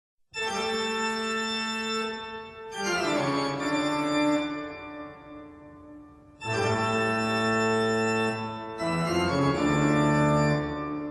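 Background music: held organ-like keyboard chords, a new chord every two to four seconds.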